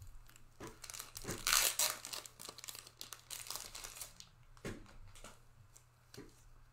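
Plastic wrapping crinkling and crackling in irregular bursts as it is handled, loudest a little over a second in, then sparser.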